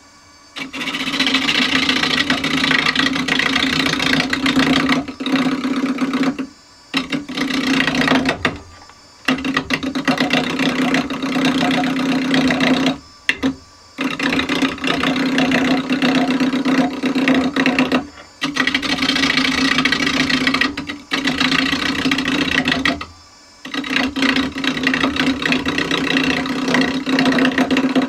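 Turning chisel cutting into a square, odd-shaped wooden blank spinning on a wood lathe at about 500 rpm, taking the corners off. The cutting comes in loud bouts of a few seconds, with short breaks where the tool lifts off and only the lathe's hum is left.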